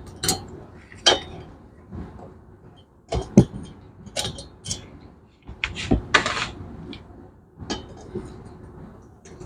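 Scattered metal clinks and knocks of hand tools and small steel parts on a workbench, several sharp strikes with a short scrape partway through, as valve keepers are removed from a cylinder head.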